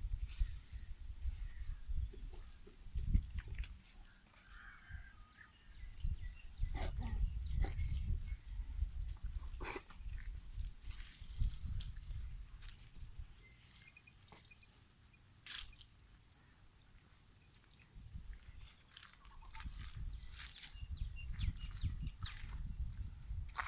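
Small birds chirping in quick repeated runs of high notes, over an uneven low rumble with scattered knocks and clicks.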